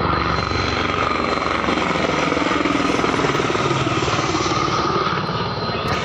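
Helicopter flying overhead: a steady, loud rotor chop with engine noise.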